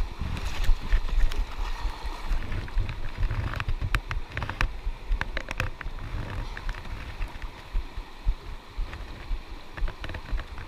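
Wind rumbling on the microphone, uneven throughout, with scattered sharp clicks and knocks on top.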